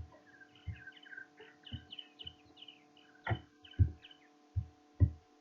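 Steady electrical hum with about half a dozen dull, irregular low thumps, like knocks on the desk or microphone, and a run of short high chirps through the first half or so.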